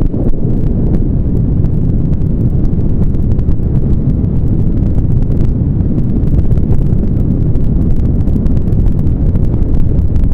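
Wind buffeting the camera microphone on the open deck of a ship under way: a loud, steady, fluttering low rumble.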